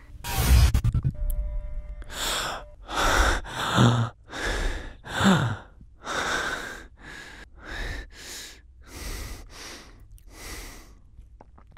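A wounded man breathing heavily in ragged gasps, about a dozen breaths in a row. A couple of them are voiced with a short falling groan, and the breaths fade and slow toward the end.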